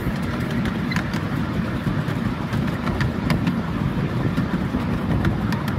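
Coal-fired miniature steam railway train running along its track, heard from the tender: a steady low rumble of the wheels with scattered sharp clicks.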